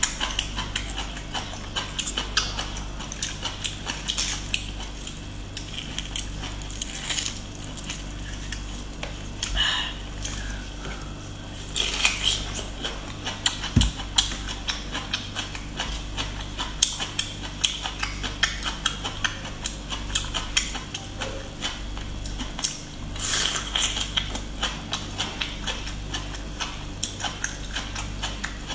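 Close-miked chewing of cooked bamboo shoot: a dense run of small wet crackles and clicks, with a few louder bites scattered through.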